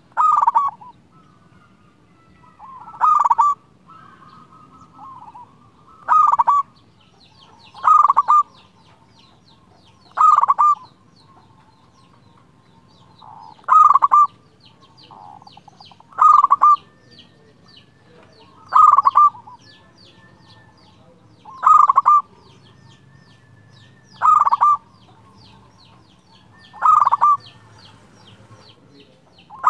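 Zebra dove (perkutut) singing its clear cooing song: a short phrase of coos, repeated about every two and a half seconds, around a dozen times.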